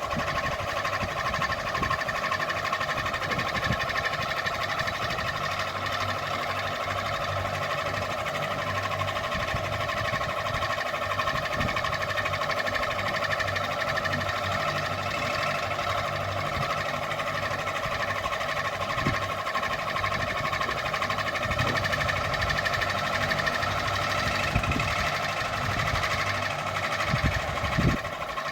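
Ceiling fan running steadily: an even mechanical whir with a steady hum.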